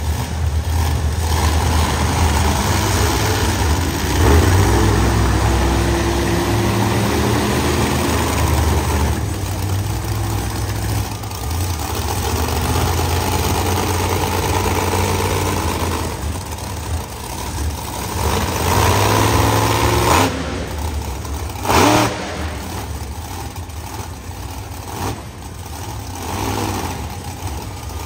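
A monster truck engine running hard and revving, its pitch rising and falling repeatedly, with a short loud burst about three quarters of the way through.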